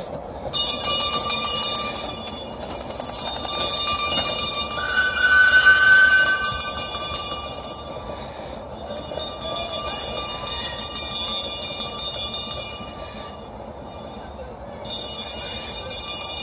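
Steam traction engine moving off, with a high ringing tone sounding in three spells of a few seconds each, a short gap between them.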